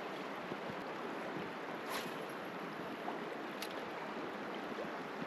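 Salmon River water rushing steadily, with two faint clicks about two and three and a half seconds in.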